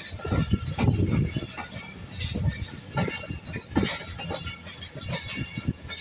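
Pakistan Railways passenger coaches rolling past, their wheels knocking and clattering unevenly over rail joints and points, with metallic clinks and heavier thuds about 1, 3 and 4 seconds in.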